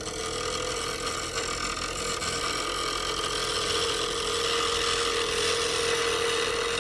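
Bench grinder running as a lathe gouge is sharpened on its wheel: a steady motor hum with the even hiss of steel being ground.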